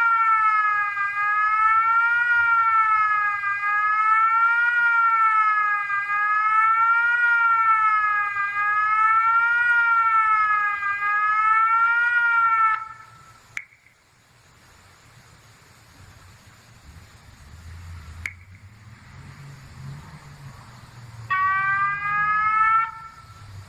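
Homemade siren sounding a wail, its tone rising and falling about every two and a half seconds, then cutting off about thirteen seconds in, followed by a click. After a quieter stretch with another click and a low rumble, a different siren signal starts about two seconds before the end and runs briefly.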